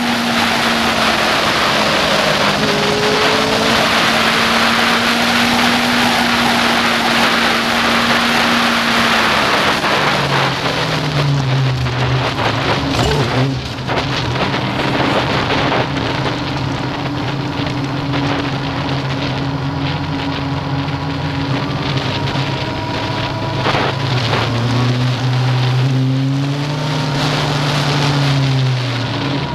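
Yamaha FZ6N motorcycle's 600 cc inline-four engine with an aftermarket Leo Vince exhaust, heard onboard under heavy wind rush. It runs at high, steady revs, then drops to lower revs about ten seconds in. It pulls on there, with the revs rising and falling again near the end.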